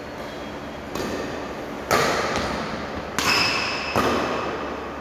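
Badminton rackets hitting a shuttlecock in a fast doubles rally: about four sharp hits, each echoing in the hall, with a short high ring after the third.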